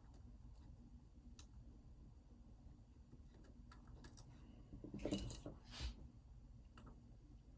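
Faint ticks of a lock pick working the pins of an ASSA Twin 6000 lock, with a brief, louder metallic rattle about five seconds in.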